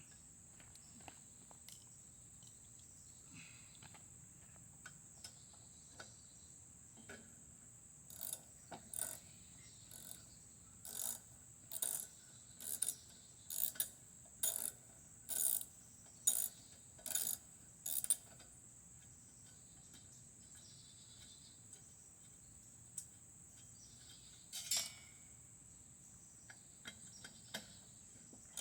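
Ratchet wrench with a 1/4-inch socket clicking in short back-and-forth strokes, a run of about a dozen strokes in the middle and one more near the end, working loose a lawn mower muffler bolt. A steady high-pitched cricket trill runs underneath.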